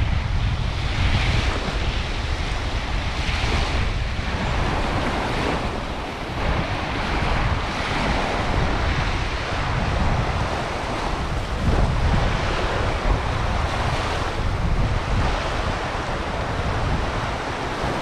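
Sea surf washing onto a sandy beach in uneven swells, with wind buffeting the microphone in a steady low rumble.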